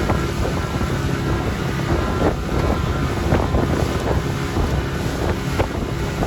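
Wind buffeting the microphone over a steady low hum, with a few short knocks or splashes.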